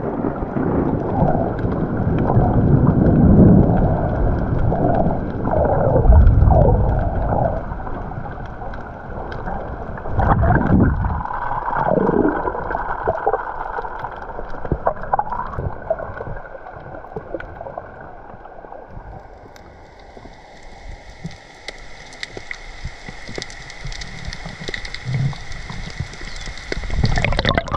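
Heavy squall rain with gusting wind buffeting the microphone, loudest in the first ten seconds or so, then easing; later an even hiss of rain remains.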